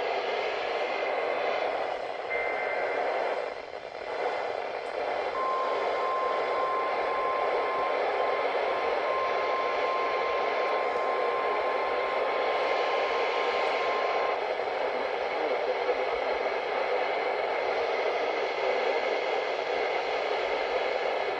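NOAA Weather Radio reception heavy with static hiss. A brief burst of two-pitched SAME data tones sounds about two seconds in. Then, about five seconds in, the steady 1050 Hz weather-radio warning alert tone starts and holds for about nine seconds, faint under the hiss, before it cuts off and only the static remains.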